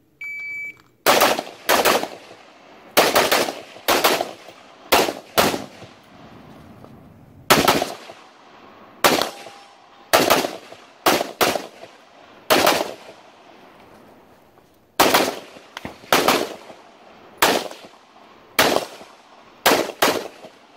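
A shot-timer start beep, then a carbine fired about two dozen times in a competition stage course of fire, mostly in quick pairs with short pauses between strings as the shooter moves between positions.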